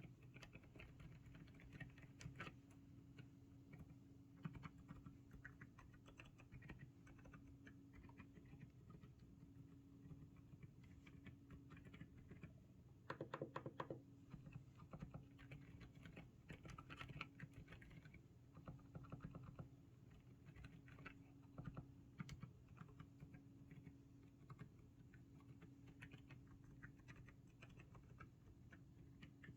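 Typing on a GMK67 mechanical keyboard with Outemu Silent Cream Yellow Pro V2 silent switches: faint, soft keystrokes in irregular runs, with a denser flurry of keypresses about halfway through.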